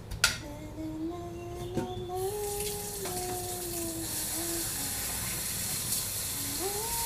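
Kitchen tap running into a stainless steel sink during dishwashing, the water coming on about two seconds in and running steadily. It opens with a sharp clack of crockery, and a steady pitched tone that shifts in small steps sounds over the water.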